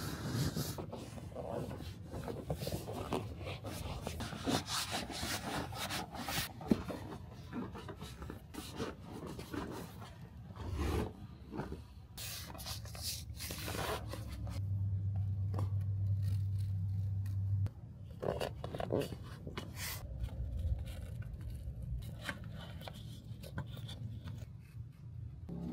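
Hands working on a car seat's upholstery: scraping and rubbing of material, with scattered clicks and knocks. A steady low hum runs for about three seconds past the middle.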